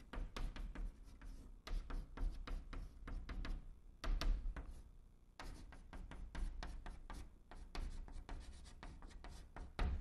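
Chalk writing on a blackboard: a quick run of taps and scratches as characters are written stroke by stroke, with a short lull a little past the middle.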